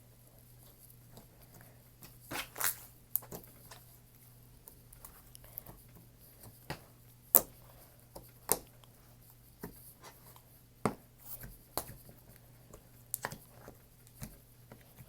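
Clear slime being handled by hand, giving irregular sharp clicks and pops as it is poked, stretched and folded.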